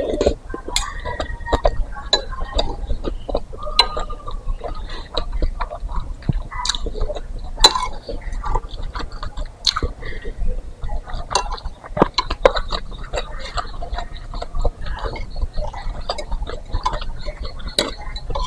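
Close-up eating sounds of meatball soup: wet chewing and many small mouth clicks, with now and then a sharp clink of a spoon on the bowl.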